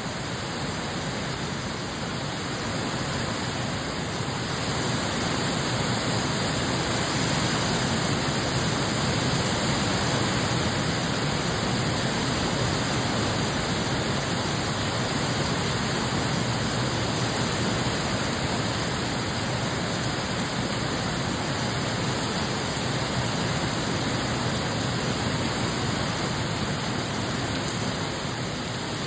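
Rain falling steadily, an even hiss that grows a little louder a few seconds in.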